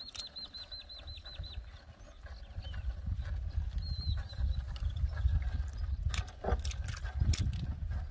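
A bird calling a quick run of about eight high notes, then a couple of single notes, over a low rumble that builds from about two seconds in. A few sharp knocks sound near the end.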